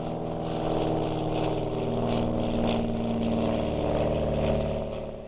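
Piston engine of a light single-engine propeller plane running steadily in flight, a constant multi-pitched note that shifts slightly about two seconds in and fades away near the end.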